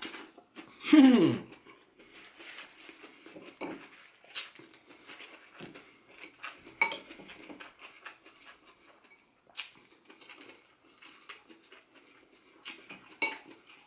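A person chewing a crisp lettuce wrap, with a short falling vocal sound about a second in, followed by scattered small clicks and crackles of chewing, lettuce leaves being handled and a metal spoon against a bowl.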